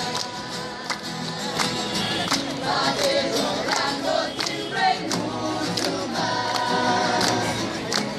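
A crowd singing together in chorus, men and women, to a strummed acoustic guitar, with sharp regular strokes keeping the beat.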